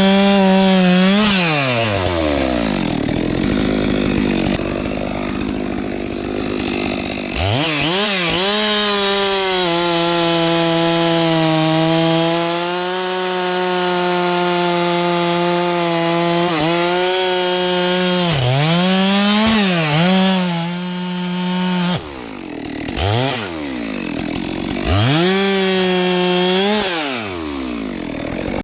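Two-stroke chainsaw at full throttle cutting wood, its engine pitch dipping under load. It drops to a low idle about two seconds in and again around twenty-two seconds, revving back up each time, with short throttle blips in between.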